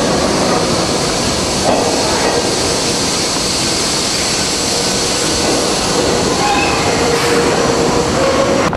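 New York City subway train of stainless-steel cars pulling into an underground station: a loud, steady rush and rumble of wheels and motors, with faint thin squeals as it slows in the later seconds.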